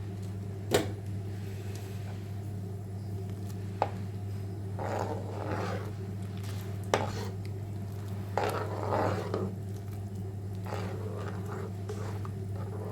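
A cooking utensil knocking sharply against a pot three times, with short scraping stirring sounds in between, over a steady low hum.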